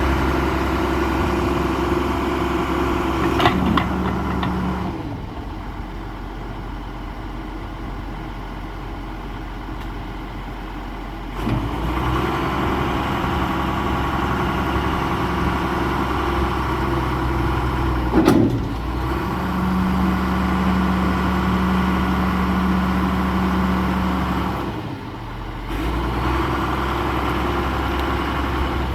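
John Deere 710G backhoe loader's diesel engine running, settling to a lower, quieter speed about five seconds in and picking back up about twelve seconds in, with a short dip again near the end. Two sharp knocks sound over it, about three and a half and eighteen seconds in.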